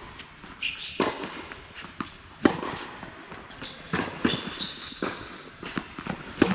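A tennis rally on an indoor court: sharp racket-on-ball hits about every second and a half, with softer ball bounces between them. A short high squeak comes a little past the middle.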